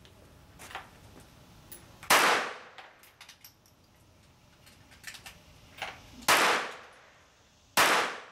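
Three gunshots, about two, six and eight seconds in, each with a short echoing tail, with fainter clicks and knocks between them.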